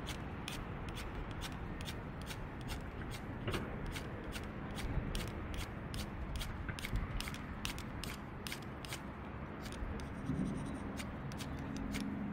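Wood burning in a camping wood stove, crackling with an irregular run of sharp pops and snaps, several a second, over a low steady background noise.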